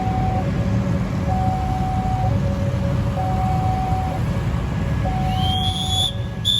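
Railway level-crossing warning alarm sounding in two alternating tones, each held about a second, over a steady low rumble. A high tone rises and holds briefly near the end.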